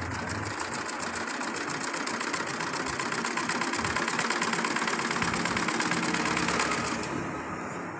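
Tezgam sewing machine stitching a test seam at speed, a fast, even clatter of needle strokes that stops about seven seconds in. The seam checks whether the machine still skips stitches after its needle-to-shuttle timing was set.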